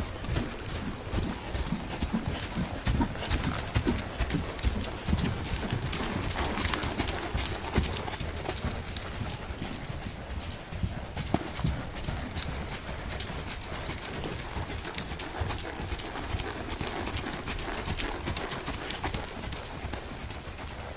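Hoofbeats of a KWPN horse working over ground poles and on the flat: a continuous run of clip-clop footfalls.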